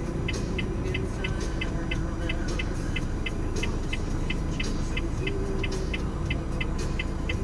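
Car engine and tyre noise heard inside an escort vehicle's cabin at road speed, with a steady high ticking about three times a second.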